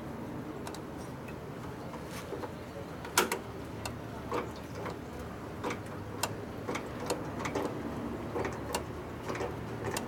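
Scattered light metallic clicks and taps of a wrench and distributor parts being handled, at irregular intervals, with one sharper click about three seconds in, over a low steady background hum.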